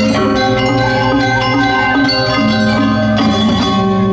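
Balinese gong kebyar gamelan playing: bronze metallophones struck in fast, dense strokes over held low ringing tones, with a brighter flurry of strokes about three seconds in.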